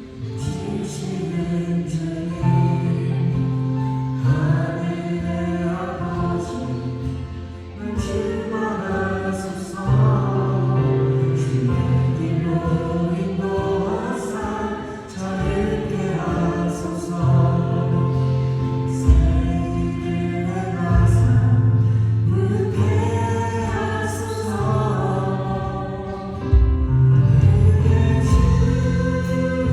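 Praise team singing a Korean worship song together in harmony, backed by keyboards, acoustic guitar and drums with cymbal strokes.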